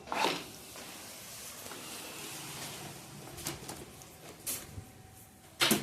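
Plastic knocks, rubbing and scattered clicks as a desk fan's front grille is lifted off its clips, with a louder knock near the end.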